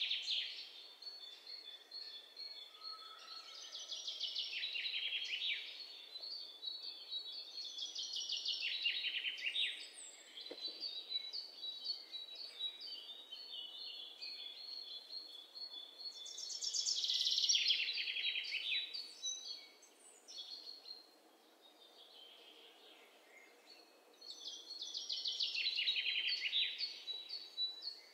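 Birds chirping: high, rapid trills and repeated notes that swell up and die away in several bouts every few seconds.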